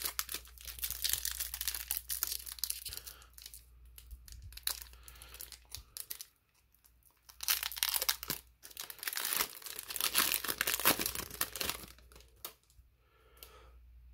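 A foil trading-card booster pack being crinkled and torn open by hand: crackling rustle in stretches, with a pause of about a second midway.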